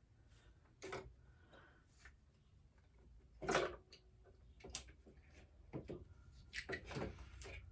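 Scattered clicks, knocks and short scrapes of metal parts being handled as the carburettor and cylinder barrel are worked off a Yamaha AG100's two-stroke engine. The loudest is a brief clatter about three and a half seconds in, with a quick run of knocks near the end.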